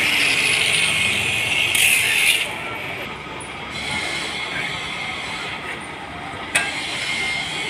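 Electric angle grinder running on a steel loom crankshaft, a loud high whirring that cuts off abruptly about two seconds in. After it, quieter handling noise, with one sharp metal clank near the end as steel shafts are moved about.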